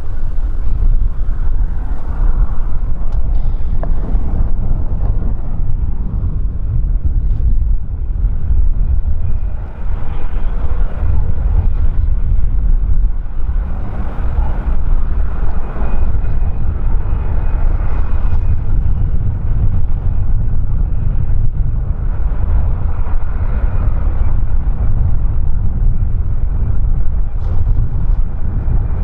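Steady loud rumble of an airliner's engines mixed with strong wind buffeting the microphone, swelling and easing every few seconds.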